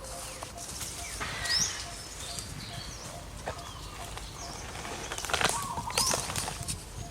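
Short, high chirping and squeaking animal calls, several rising in pitch, over scattered rustling and clicking, busiest about five to six seconds in.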